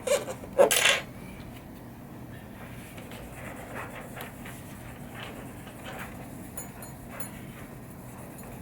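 Handling noise of tweezers and fingers placing mylar leveling stickers on pinball playfield inserts and rubbing them down: two louder scrapes in the first second, then faint light ticks and rubs over a steady low hum.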